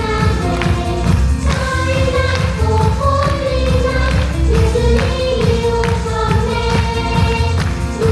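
A church praise team singing together over a full accompaniment with percussion, in a Christmas special-song performance.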